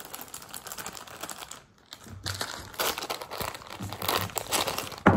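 Clear plastic Lego parts bag crinkling as it is handled and pulled open, with the plastic bricks inside clicking against each other. One sharp snap near the end.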